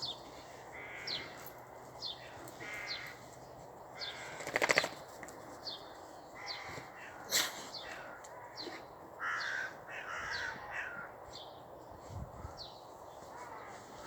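Birds calling in alarm: repeated harsh crow-like caws mixed with short, high, falling chirps, and a loud rattling call about five seconds in. The birds are raising the alarm at a red kite hunting overhead.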